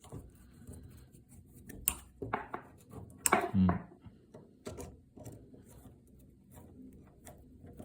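A screwdriver turning a screw out of a Hammond 1 typewriter's carriage mechanism, heard as scattered small metallic clicks and scrapes. A few sharper clicks come about two and three seconds in.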